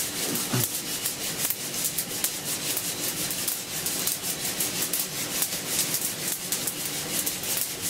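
Dark-roasted coffee beans rattling and tumbling in a handheld mesh coffee roaster, shaken back and forth over a gas flame in a steady rhythm. The roast is in its last stage, deeper than Italian, with second crack almost over.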